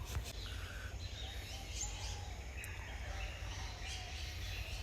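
Birds chirping faintly, scattered short calls and little rising and falling notes, over a steady low rumble.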